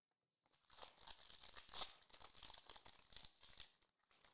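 Foil wrapper of a Panini Prizm basketball trading-card pack crinkling and tearing as it is ripped open by hand. It starts about half a second in and pauses briefly near the end.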